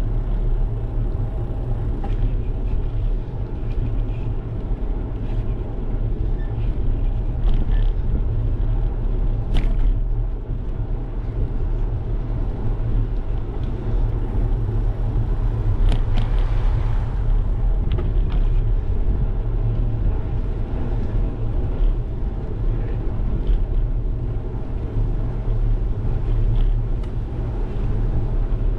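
Steady low wind noise on the microphone of a GoPro carried on a moving bicycle, with bicycle tyres running on asphalt and a few short clicks and rattles from the bike.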